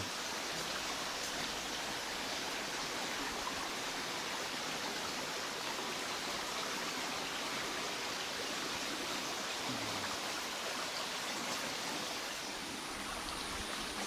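Brook flowing, a steady, even rush of water.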